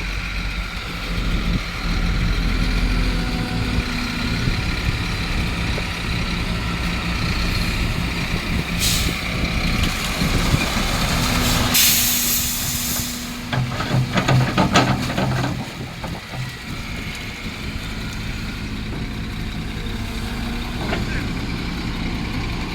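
Heavy diesel machinery engine running steadily, with a short burst of air hiss about nine seconds in and a longer one around twelve seconds in, followed by a run of knocks.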